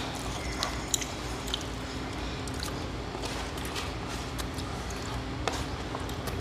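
A paperboard food tray being folded and creased by hand: scattered small crinkles and sharp taps over a steady low hum.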